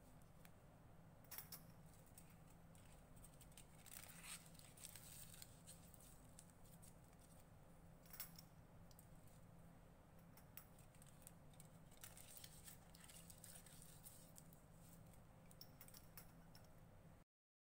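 Faint crinkling of aluminium foil being pressed over the mouths of glass test tubes, with scattered light clicks as the tubes are handled in a wire rack, over a low steady room hum.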